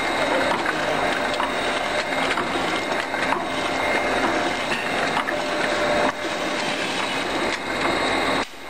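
Circular knitting machine running, its needle cylinder turning with a steady, dense clatter of fine clicks. The sound dips briefly near the end.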